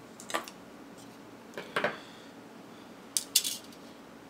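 Small tools and parts being handled and set down on a work table: three short light clicks and clinks about a second and a half apart, the last the loudest.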